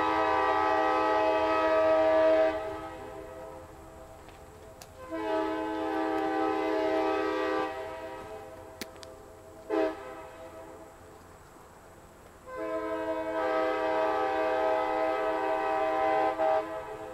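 Airchime K-5LA five-chime locomotive horn sounding a chord in the grade-crossing pattern: two long blasts, a short toot, then a final long blast.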